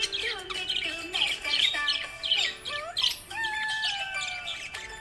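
Budgerigars chirping and warbling: a busy run of quick chirps, squawks and pitch glides, with a longer, slowly falling whistled note a little past the middle.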